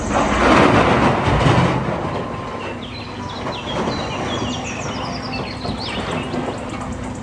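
Large wheel loader's diesel engine running while its bucket tips a load of earth into a dump truck's steel bed. The pour is loudest in the first two seconds.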